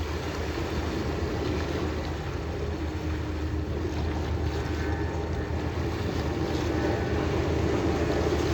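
Boat engine running steadily under a rush of water and wind on the microphone, getting a little louder near the end.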